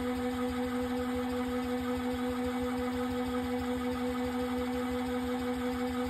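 Collapsible mini washing machine's motor running steadily as it spins the inner basket at speed: an even electric hum with a fast low throbbing underneath.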